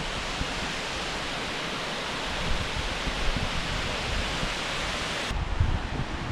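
Rushing water of a waterfall, a steady even hiss. Near the end the higher part of the hiss cuts off abruptly and low, uneven rumbling takes over.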